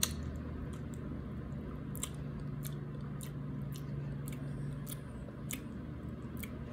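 A mouthful of soft, creamy durian flesh being chewed: wet mouth clicks and lip smacks, irregular, about two a second, the sharpest as the bite goes in at the start.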